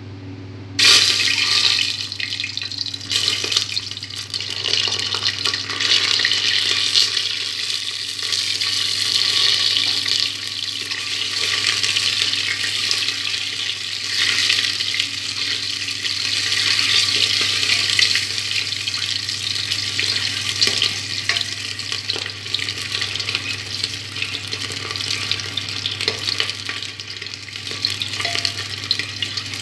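Whole boiled eggs sizzling in hot oil in an aluminium pressure cooker. The sizzle starts suddenly about a second in as the eggs go into the oil, and a steel spoon stirs them against the pot now and then.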